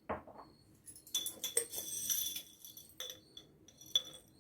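A spoonful of dry whole spice seeds pattering into a container, with a few sharp clicks of a spoon against it. A soft knock opens the sound, the seeds rattle briefly about a second in, and two single clicks come near the end.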